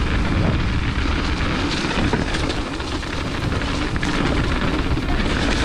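Wind rushing over the action-camera microphone while a mountain bike descends fast on a wet dirt singletrack, tyres rumbling on the ground with a steady run of small knocks and rattles from the bike over the bumps.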